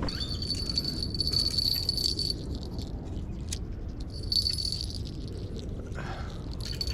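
Spinning fishing reel being cranked to retrieve a spinner, giving a high, steady whir in two spells with a pause between, and a single click in the pause.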